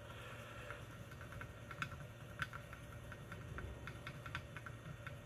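Cotton swab wet with cleaning solution scrubbing across an ECU circuit board's components and solder joints, making irregular light ticks and scratches, a couple of them sharper about two seconds in. A low steady hum runs underneath.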